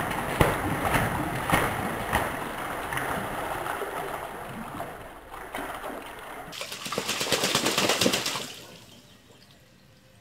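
A mallard drake and a white Pekin duck splashing as they bathe in a shallow water trough: a run of rapid splashes that slowly eases off, then a second loud flurry of splashing, and the water stops about a second and a half before the end.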